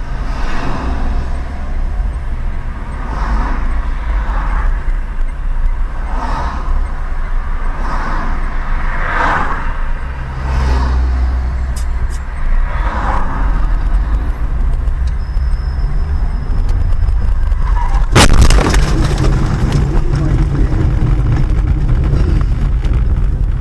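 Car cabin with steady low engine and road rumble, then one sudden loud crash about eighteen seconds in: a collision impact, with noise ringing on briefly after it.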